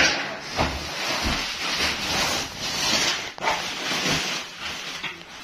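Cardboard boxes being pulled and shifted: a rough rustling and scraping, in stretches with short breaks, with sharp knocks as they are handled.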